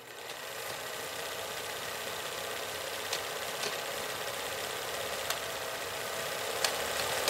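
A steady, high hiss with a few sharp clicks scattered through it, slowly growing louder: a noise build-up at the start of podcast intro music.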